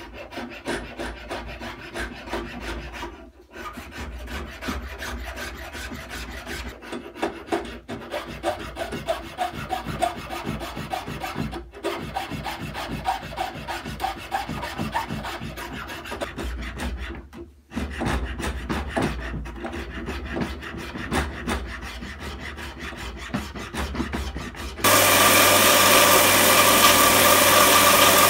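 Hand file rasping back and forth across the wooden handle scales of a Kephart knife clamped in a vise, in runs of quick strokes broken by short pauses. Near the end the sound changes abruptly to a Parkside belt sander running loudly, with the handle pressed against its belt.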